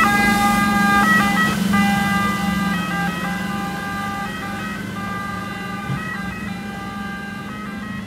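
Venice water ambulance's two-tone siren alternating between a high and a low note, with a steady low hum beneath, growing gradually fainter.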